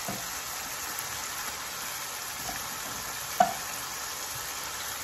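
Spiced onion masala sizzling steadily in a frying pan as whole raw quail are laid into it, with a few light clicks and one sharp metallic clink of the tongs about three and a half seconds in.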